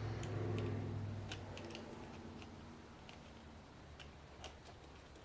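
Light, irregular clicks and ticks of small metal padlock parts being handled, from an American 5200 padlock being worked on by hand, over a low hum that fades out in the first two seconds or so.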